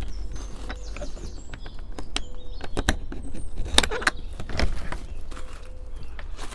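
Scattered clicks and knocks over a steady low wind rumble on the microphone, with a few faint bird chirps.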